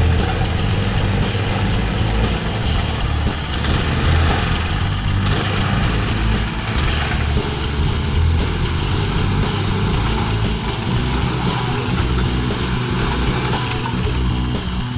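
Small engine of a home-built personal tracked vehicle running steadily while the vehicle crawls forward on its rubber tracks.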